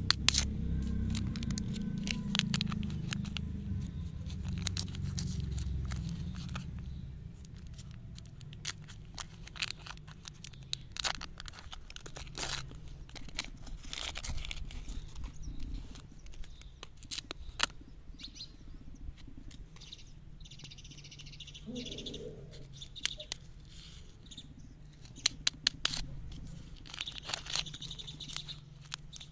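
Candy-bar lollipop wrapper crinkling and tearing as fingers peel it off, in scattered sharp crackles. A low rumble runs under the first several seconds.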